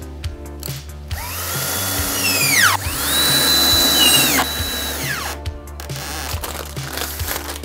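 Power drill running in two trigger bursts, each whine spinning up, holding and winding down quickly, over background music with a steady beat.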